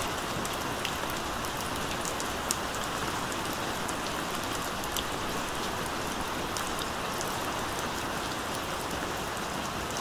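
Steady rain: an even hiss of falling rain with scattered individual drops ticking over it, one sharper tick about two and a half seconds in.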